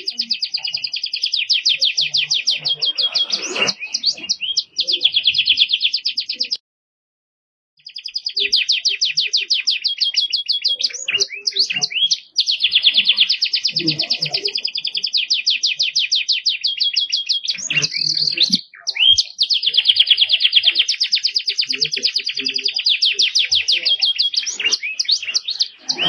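Domestic canary singing long, fast trills of rapidly repeated high notes, one phrase running into the next. About seven seconds in, the song cuts out completely for about a second, then resumes.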